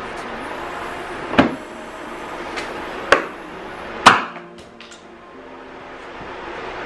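Sharp snaps and knocks from a Dodge Challenger's rear spoiler and its plastic clips as it is pried and worked loose from the trunk lid: three loud ones, the last the loudest, with a few fainter clicks between and after.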